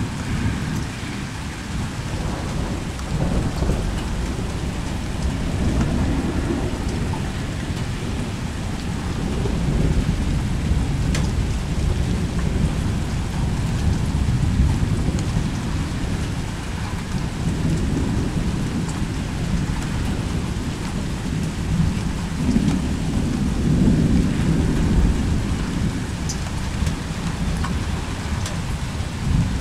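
Thunderstorm at night: steady rain, with rolling thunder that swells and fades several times.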